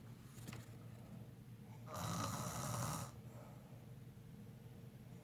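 A sleeper snoring: one loud snore about two seconds in, lasting about a second, with quieter breathing before and after it.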